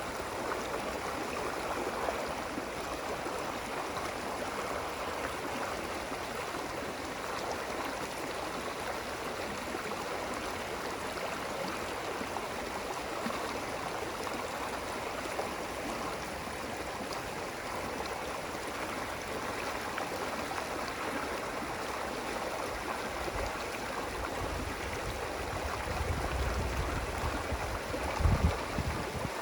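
Running water flowing steadily with an even rushing sound. Near the end, low rumbling thumps come in over it.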